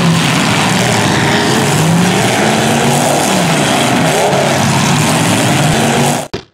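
Engines of several demolition-derby cars running and revving at once, their pitches rising and falling over one another. The sound cuts off suddenly about six seconds in.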